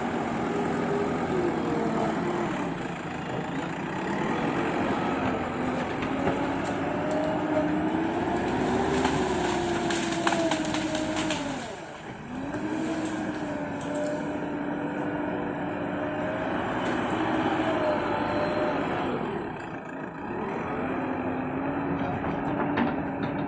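Excavator's diesel engine running under load, its pitch rising and falling as the machine works, with a brief dip in revs twice. A short run of clanks about halfway through.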